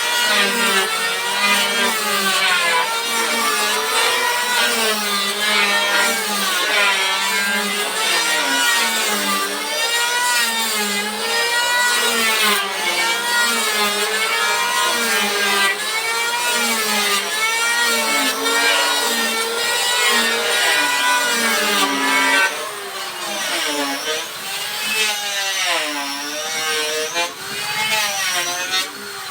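Small electric power tool working teak wood, its motor pitch dipping and rising about once a second as it is pushed into the cut. It gets quieter and less even about three-quarters of the way through.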